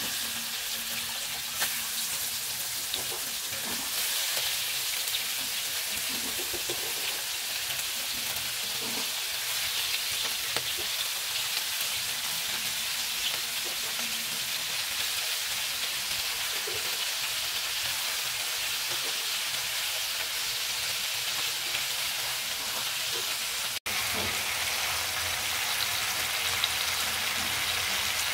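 Oil sizzling steadily in a frying pan as small whole marinated birds fry, with scattered small crackles over the hiss. The sound breaks off for an instant about three-quarters of the way through.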